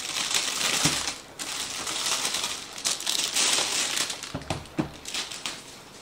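Clear plastic wrapping crinkling as it is handled and pulled off a small aluminum briefcase, with a few light knocks of the case about a second in and again near the end.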